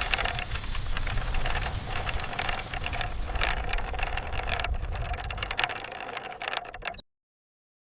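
Continuous mechanical rattling and clicking over a low rumble, with a faint steady hum; it cuts off suddenly near the end.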